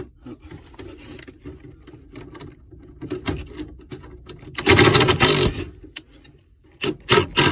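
Cordless impact driver driving screws to fasten a wire-mesh cage: short bursts of rapid hammering, the loudest and longest just under a second about five seconds in, then several short bursts near the end.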